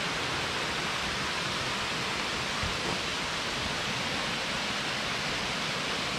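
Steady, even rush of a creek's flowing water.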